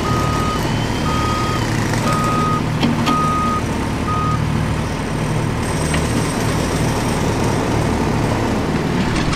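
Truck engine running steadily with a reversing alarm beeping about once a second; the beeps stop about four seconds in while the engine runs on.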